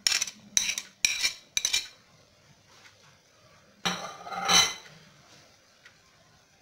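Sharp metal clinks against a pressure-cooker pot, four in the first two seconds about half a second apart. Then comes a longer, louder clatter of a spoon working chopped vegetables into the rice in the pot.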